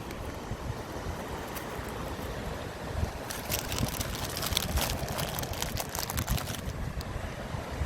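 Wind buffeting the microphone over a steady seaside wash of surf. In the middle come about three seconds of fine crackly rustling.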